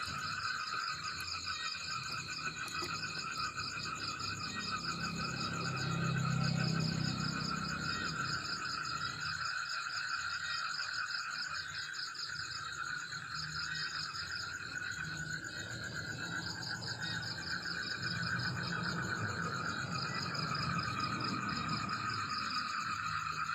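Dense chorus of trilling frogs and insects, a steady layered pulsing that runs without a break. A low rumble swells beneath it about six seconds in and again near the end.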